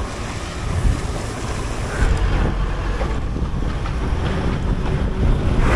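Wind buffeting the microphone of a camera on a moving bicycle, a gusty low rumble over the hiss of tyres on a wet road.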